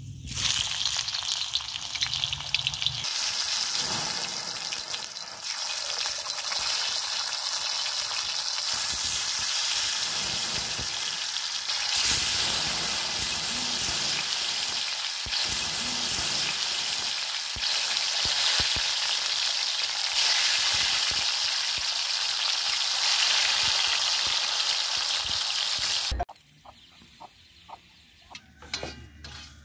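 Sliced red onions sizzling loudly in hot oil in a black iron wok over a wood fire, with a metal spatula scraping and stirring through them. The sizzle cuts off abruptly near the end, leaving quieter clinks of a spatula in a metal pan.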